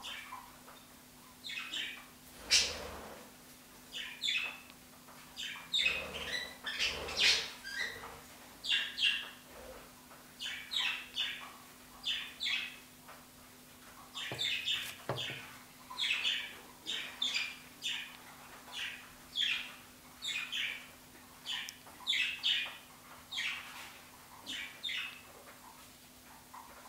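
Female veiled chameleon chewing cucumber: short crisp crunches repeating at a steady pace of about one every three-quarters of a second. A faint steady hum sits underneath.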